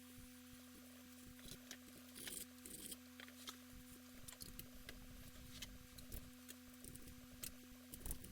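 Faint scattered clicks and rustles of hands handling small parts, over a steady low hum.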